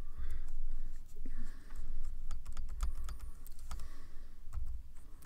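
Computer keyboard and input clicks: an irregular run of quick sharp clicks, thickest in the middle, with a few dull low thumps.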